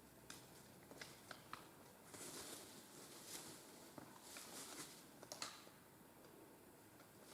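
Faint scattered rustling with a few light ticks near the start.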